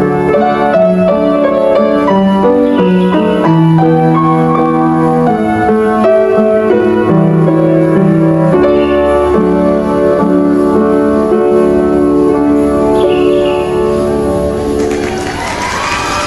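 Upright piano played, a steady stream of notes and chords. A quick bright run sweeps upward near the end as the piece finishes.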